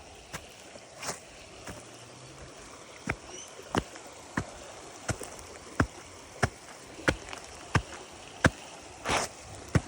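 Footsteps striking pavement at a steady walking pace, about three sharp steps every two seconds. They become regular about three seconds in, over a steady hiss of outdoor background noise.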